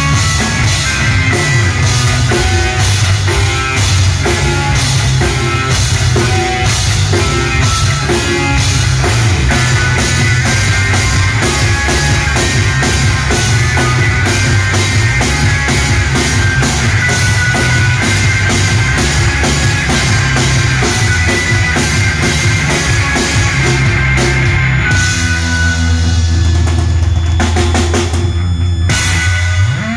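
Live rock band, with two electric guitars and a drum kit, playing loud and steady. Near the end the drumming thins and the song closes on a long held low chord.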